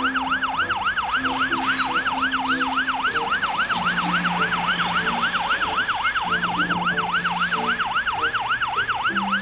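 Fire engine siren in fast yelp mode, its pitch sweeping up and down about four times a second without a break.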